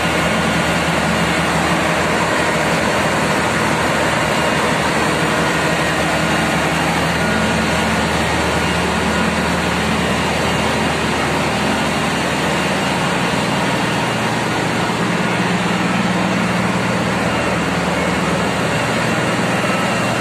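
Ship's engine room machinery running: a loud, steady drone with a constant low hum, unchanging throughout.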